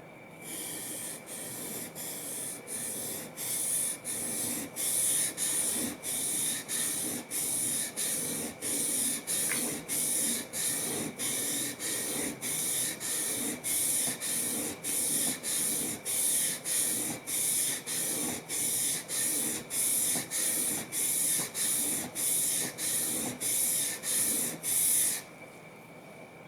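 Hand-plane blade rubbed back and forth on a sharpening stone. Each stroke gives a rasping hiss, in a steady rhythm of a little under two strokes a second, and the strokes stop suddenly near the end.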